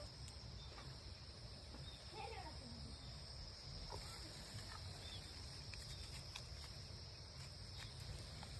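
Faint, steady high-pitched insect chorus, with a few faint clicks and short chirps.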